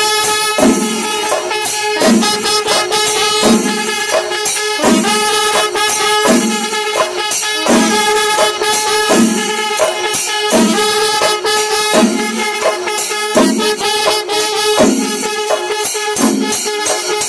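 Kerala temple ensemble playing: curved brass kombu horns sound a swooping low blast about every second and a half over a steady held horn tone, with cymbals and drums clashing fast throughout.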